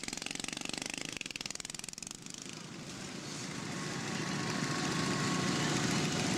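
Racing riding lawn mower engine running hard, at first a fast buzzing pulse, then from about two seconds in a lower engine sound that grows steadily louder as a mower approaches.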